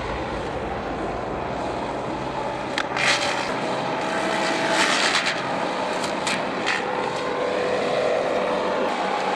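An engine running steadily, with a few short hissing bursts about three and five seconds in.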